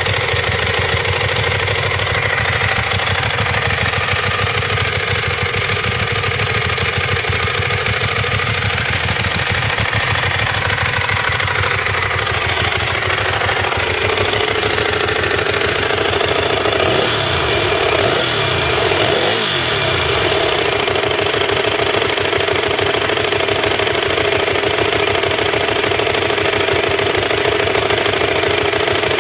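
Ducati 1198 superbike's 1198 cc L-twin engine idling steadily, with a couple of brief rises and falls in revs a little past halfway.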